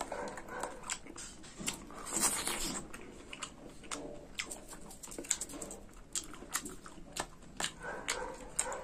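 Close-miked chewing of ripe long mulberries: a scatter of short wet mouth clicks and squelches as the soft fruit is bitten and chewed.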